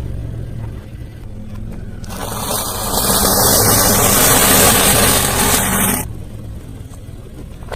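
Steady low hum of a vehicle, with a loud rushing noise that swells for about four seconds in the middle and then drops away.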